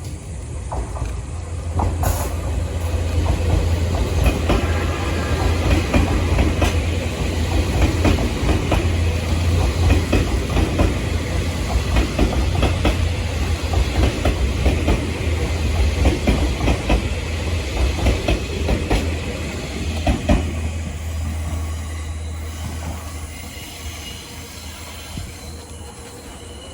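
A locomotive-hauled train passes, its wheels clacking over the rail joints with some squeal. The sound builds about two seconds in, stays loud for most of the pass, then fades near the end.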